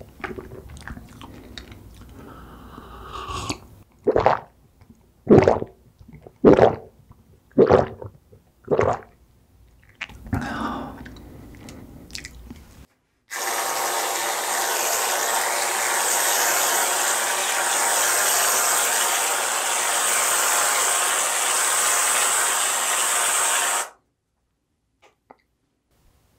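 Close-miked mouth sounds of drinking and eating, with about six loud gulps a second or so apart. About halfway through, an aerosol can of whipped cream sprays in one loud, steady hiss for about ten seconds, then stops.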